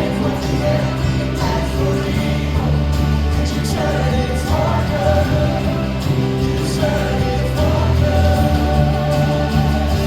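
Worship band music with singing: a praise song with a strong, steady bass and a sung melody line.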